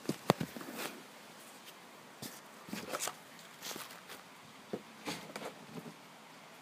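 Handling noises: a few sharp knocks right at the start, then scattered light taps and short rustles of a plastic ice cream tub being moved about.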